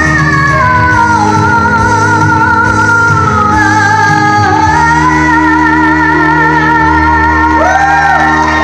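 A woman singing a slow song live through a microphone and PA, long held notes with vibrato, over sustained chords on an electronic keyboard.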